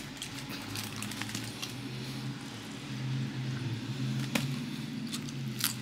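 A steady low hum, with small clicks and rustles as a taco is handled and eaten, and two sharper crackles about four and a half seconds in and near the end.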